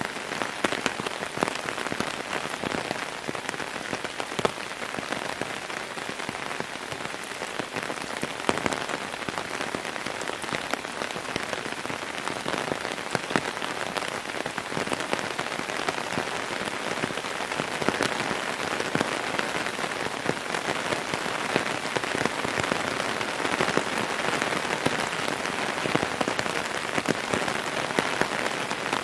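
Heavy downpour: a steady dense hiss of rain with many individual drops striking sharply close by.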